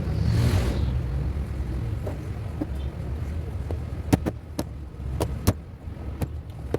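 Sharp, irregular metal clicks and taps as a new shaft bushing is fitted into a wall fan motor, with a short scraping hiss near the start, over a steady low rumble.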